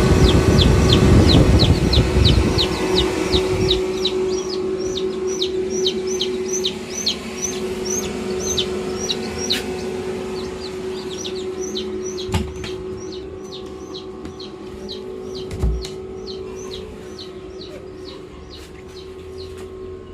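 Chicks peeping in a continuous run of short, high, falling peeps, about three a second, over a steady low hum. A rumble fills the first few seconds, and a few sharp knocks come in the second half.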